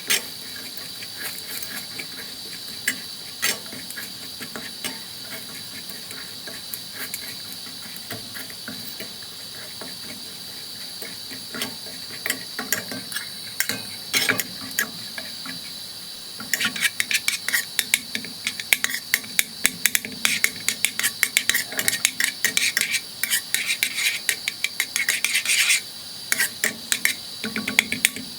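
Sugar being stirred in a pan as it melts: scattered taps and scrapes against the pan at first, then quick, continuous scraping and clinking from a little past halfway. A faint steady high tone runs underneath.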